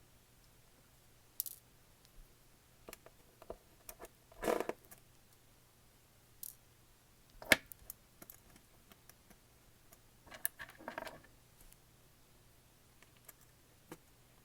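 Scattered small clicks and taps of a screwdriver and tiny screws being worked on a tablet's logic board, with the sharpest click about seven and a half seconds in.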